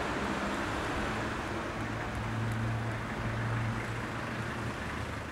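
Street traffic: cars and a van driving past, with a steady engine hum under tyre and road noise.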